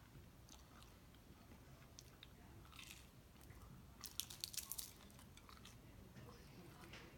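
A person biting into a quesadilla: a quick run of crunches about four seconds in, with faint chewing before and after.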